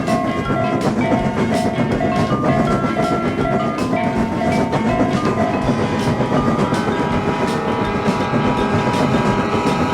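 Animated train running over the rails with a rhythmic clickety-clack, mixed with upbeat background music. A railroad crossing alarm rings about twice a second and stops about halfway through.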